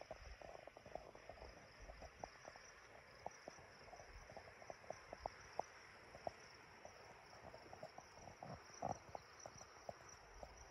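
Near silence: faint outdoor ambience, a steady high hiss with scattered soft ticks.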